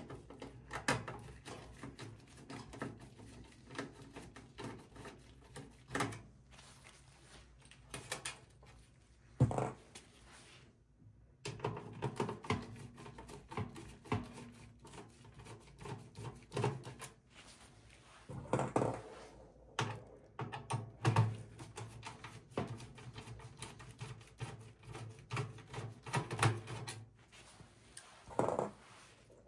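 Hand screwdriver taking out the motherboard screws in a metal PC chassis: many small clicks and scrapes of the bit in the screw heads, with a few louder knocks.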